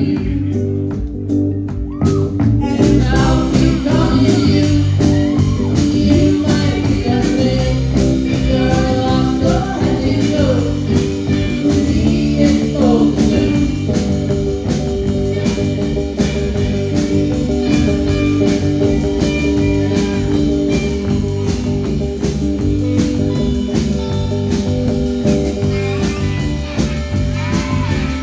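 Live garage-rock band playing loudly, with electric guitar, drums and singing. The drums' cymbals come in fully about two and a half seconds in, with an even beat after that.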